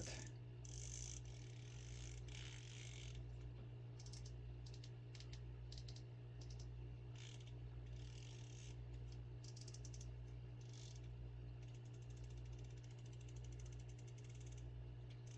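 Diamondback Ideal Nymph fly reel being handled and spun. It gives faint runs of rapid ratcheting clicks that start and stop several times, over a steady low hum.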